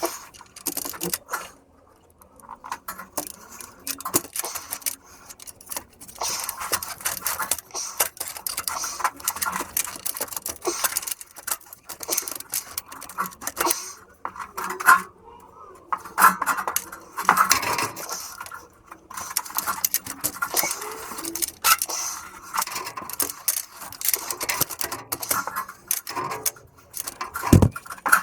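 Irregular clinking and scraping of metal hand tools and parts during work on a car's exhaust pipe, with a louder knock near the end.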